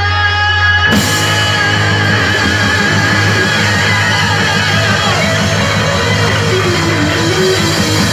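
Live heavy rock band playing loud with distorted electric guitars, bass and drums. After a brief held note, the full band crashes in together about a second in, under a long held high note that slides downward near the end.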